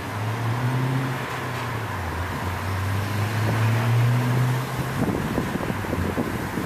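A motor vehicle engine hums, its pitch dipping and rising, over a steady wind hiss. From about five seconds in, wind buffets the microphone.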